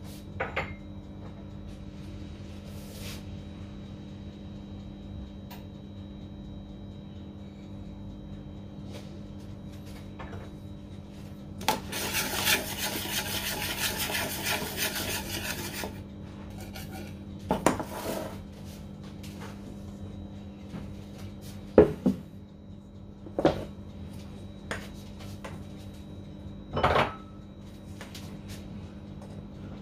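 Wire whisk mixing flour and cocoa powder in a small metal bowl: a fast run of scraping strokes for about four seconds, followed by a few separate knocks of utensils on metal.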